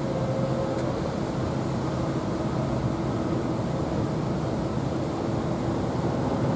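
An engine running steadily: a low, even drone with a few held tones over a rumble.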